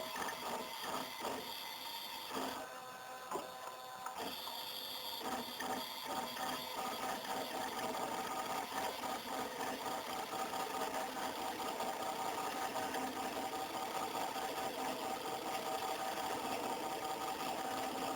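Stepper motors of a Colibri-CNC contact-probe 3D scanner whining as they drive the probe across the piece, with a fast, even pulsing. The pitch shifts briefly a few seconds in as the motion changes.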